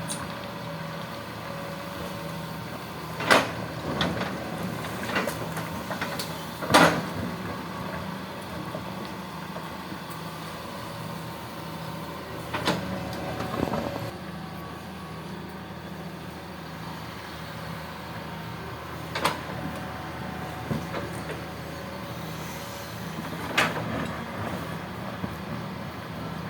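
Hitachi excavator's diesel engine running steadily, with short sharp knocks every few seconds, the loudest about three and seven seconds in.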